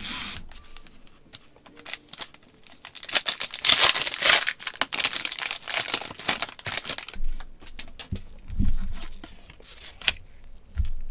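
Foil wrappers of 2018 Panini Prizm football card packs being torn open and crinkled, loudest about three to five seconds in, followed by softer rustling and clicks as the cards are handled.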